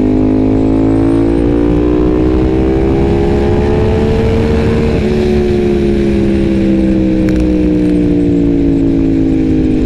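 Ducati Panigale V4's V4 engine pulling steadily under way. Its pitch rises slowly for about five seconds, drops a small step, then falls slowly as the bike eases off.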